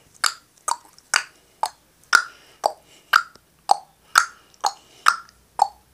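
A steady rhythm of sharp clicks, about two a second, alternating between a higher and a lower pitch.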